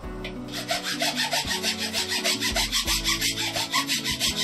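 Hand hacksaw cutting through a dry tree branch, a quick, even rasp of several strokes a second that starts about half a second in.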